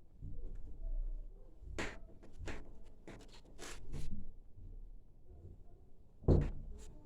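A door knocking and rattling in its frame as a cat pushes and paws at it, trying to get in: a run of sharp taps and clicks, then the loudest knock about six seconds in.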